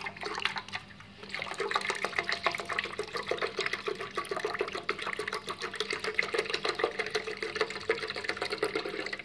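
Milk pouring from a carton into a plastic blender jar: a continuous splashing glug that dips briefly about a second in, then runs on and stops suddenly at the end.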